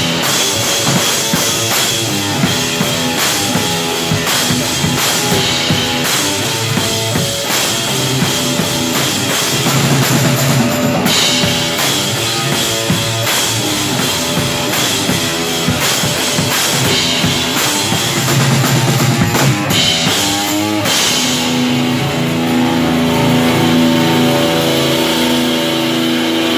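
Live rock band playing an instrumental passage: electric guitar and drum kit with cymbals, with no singing. About 20 seconds in the music shifts to steadier held low notes.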